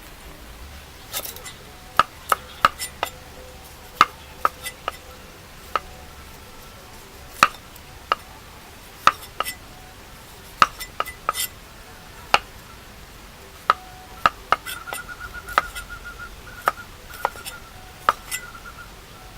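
A knife chopping on a cutting board: about two dozen sharp, irregularly spaced strikes, starting about a second in.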